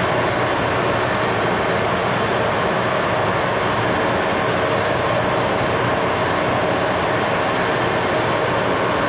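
A shop machine running steadily: a continuous, even whirring drone with a faint hum in it that does not change.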